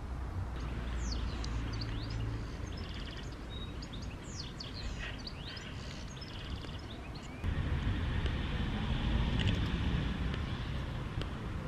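Outdoor garden ambience: songbirds chirping and twittering over a steady low rumble like distant traffic. About seven seconds in, the background suddenly gets louder, with a steady hiss added.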